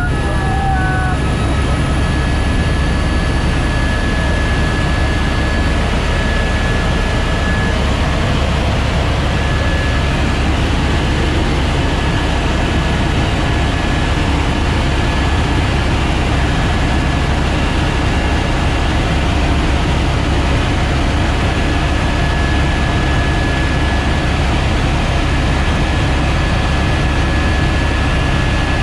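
Single-turbine Airbus AS350 Ecureuil helicopter in flight: its rotor and turboshaft engine make a steady, loud drone, with a faint high whine that fades in and out.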